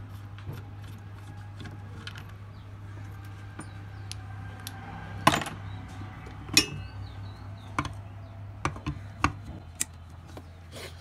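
Metal tools knocking and clinking against an alternator housing as it is dismantled: two loud knocks about halfway through, then a string of lighter taps. A low steady hum runs underneath.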